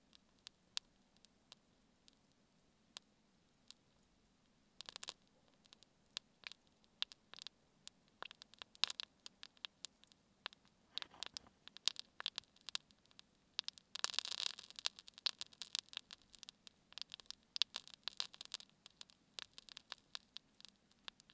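Spruce-sap candle crackling as the resin burns: faint, irregular small pops and clicks that come thicker about halfway through, with a brief hiss about two-thirds of the way in.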